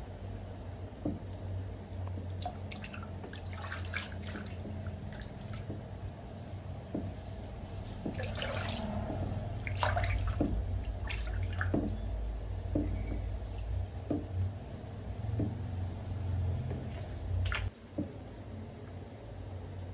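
Shower head spraying water into a plastic basin of bathwater, with scattered small splashes and drips as hands rinse a baby monkey; a low steady hum runs underneath.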